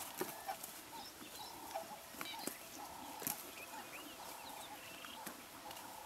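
Plains zebras grazing: irregular sharp snaps of grass being torn and cropped, with chewing, several times a second. Underneath is a faint steady background of repeating bush calls.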